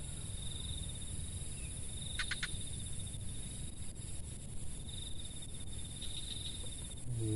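Insects trilling in the vegetation: a high, rapidly pulsing trill that comes and goes over a steady higher drone, with three quick chirps about two seconds in.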